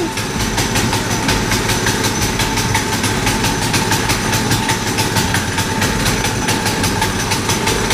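Single-cylinder Predator minibike engine idling steadily, with an even, rapid firing beat.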